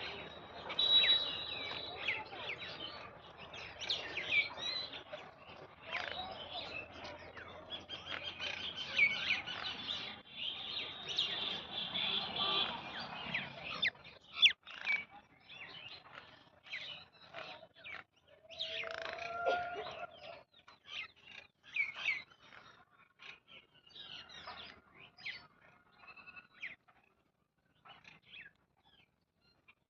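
Wild birds chirping and calling, many short overlapping chirps at first, thinning out to scattered calls in the second half.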